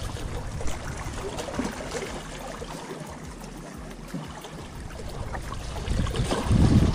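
Seawater lapping and trickling against the rocks of a harbour breakwater, with wind gusting on the microphone, strongest near the end.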